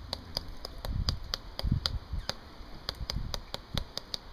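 Spice shaker shaken over a skewer of meat and vegetables, giving a few dull knocks, over a steady run of sharp ticks about five a second.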